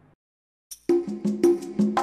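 Faint room tone cuts to silence, then closing music starts just under a second in: a percussive beat with pitched notes.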